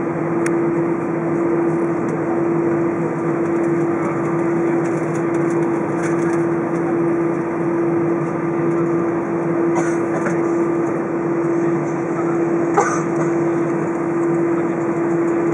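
Steady cabin noise aboard an Airbus A320 on the ground: the engines and air-conditioning make a constant drone with a steady hum in it. A faint click comes near the end.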